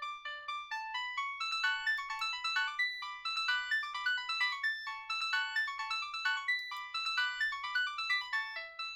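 Polyphonic ringtone tune playing through the HTC Faraday (Cingular 2125) phone's loudspeaker: a quick, busy melody of short notes, several a second, thin and without bass.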